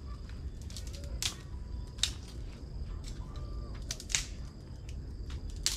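A handful of sharp clicks and knocks at uneven intervals, four of them louder, over a low steady rumble.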